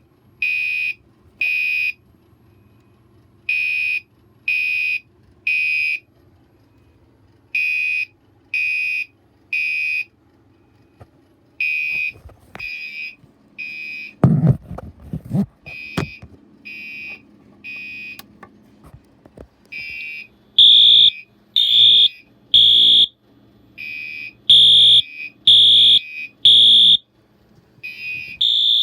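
Fire alarm horns sounding the temporal-three evacuation pattern: three short beeps, a pause, then three again. About two-thirds of the way through, a second, louder and higher-pitched horn joins in the same rhythm. A few low thumps around the middle.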